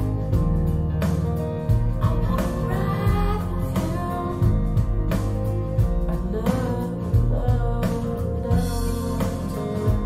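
Rock song with a singing voice, guitar and drums, played through a pair of Wharfedale Diamond 240 floorstanding speakers and picked up by a microphone in the room.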